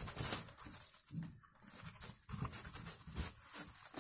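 Close-up mouth sounds of a man chewing and breathing, with soft crackles and rustles as thin-crust pizza is torn apart by hand in its cardboard box.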